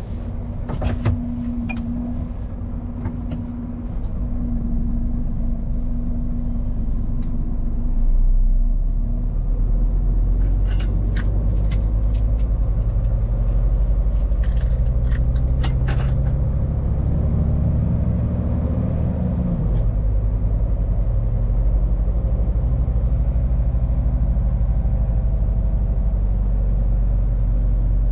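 Scania P410 truck's diesel engine running, heard from inside the cab; its note climbs steadily for several seconds and then falls suddenly about twenty seconds in. A run of sharp clicks or rattles sounds between about eleven and sixteen seconds in.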